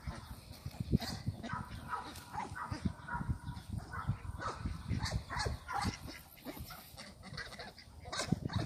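A mixed flock of domestic ducks and geese calling in many short, repeated quacks and honks while feeding, over a run of low bumping noise.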